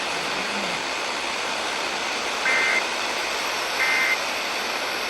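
Weather radio sending the EAS end-of-message code: short two-tone data bursts, evenly spaced about 1.3 seconds apart, two of them and a third starting at the very end, over steady radio hiss. The bursts mark the end of the severe thunderstorm warning message.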